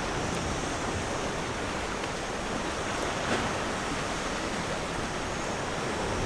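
Sea waves washing on the shore of a rocky cove, a steady rushing hiss.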